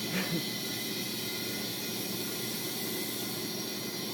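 Steady hiss of compressed air from a homemade air cannon and its air line, pressurised to about 120 psi.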